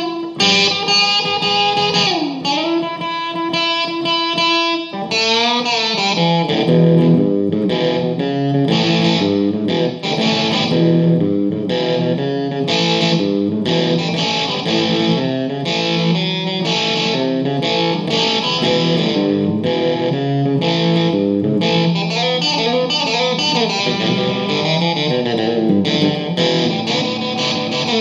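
Solo electric guitar played through a Peavey combo amp: a few held notes with a bend in the first seconds, then fast melodic single-note runs.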